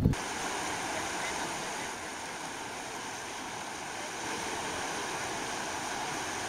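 A steady rushing noise with no clear pattern, mostly in the middle and upper range. It starts abruptly and cuts off abruptly near the end.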